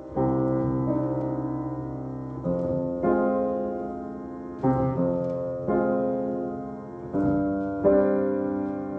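Background piano music: slow chords, each struck and left to ring and fade before the next.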